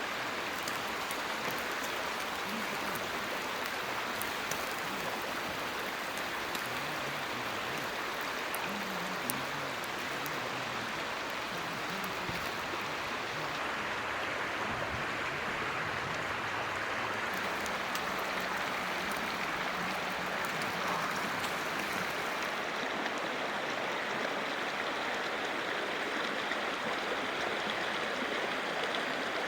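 Mountain stream flowing, a steady rush of water, with faint scattered ticks through the first two-thirds.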